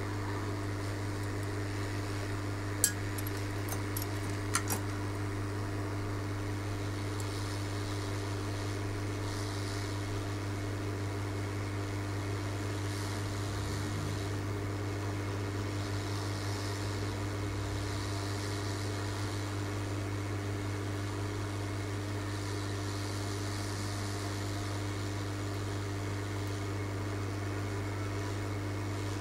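Steady electrical hum with fan-like noise running underneath, and a few small clicks about three and four and a half seconds in.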